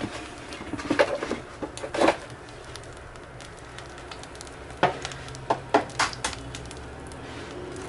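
A few drops of olive oil sizzling in a hot nonstick frying pan, over a low steady hum. A handful of sharp clicks and taps come through, most of them bunched about five to six seconds in.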